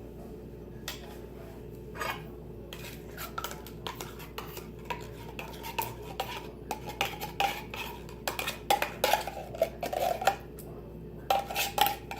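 A metal spoon scraping and clinking against a dish, with short ringing tones, as condensed cream of chicken soup is spooned and stirred into chicken broth. The first couple of seconds are quiet apart from a single knock, then irregular scrapes and clinks follow steadily.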